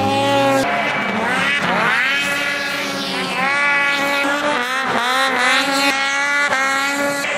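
Snowmobile engine revving hard under full throttle on a hill-drag run. Its pitch climbs steeply several times and then holds high.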